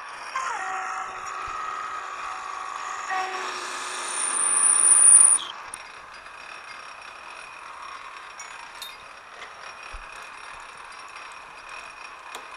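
Metal lathe taking a cut under power feed: a steady pitched cutting tone with a high squeal that builds and stops suddenly about five and a half seconds in. After that the lathe runs on with a steady whine.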